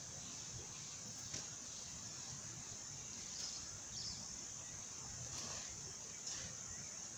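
Steady high-pitched buzzing of an insect chorus, faint, with a few soft knocks and scrapes of a hoe working soil.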